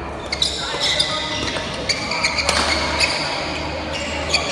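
Badminton doubles rally: rackets strike the shuttlecock several times, each hit a sharp crack, while players' shoes squeak on the wooden court floor.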